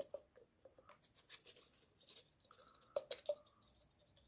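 Faint clicks, taps and scrapes of a nail polish remover bottle being handled, with a short squeak about two and a half seconds in.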